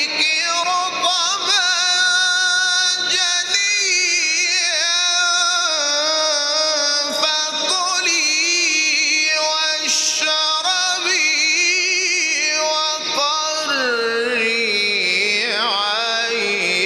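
A man's voice in melodic Quran recitation in the Egyptian mujawwad style: one long, ornamented line drawn out over held vowels with quick wavering turns. The line steps down lower in pitch in the last few seconds.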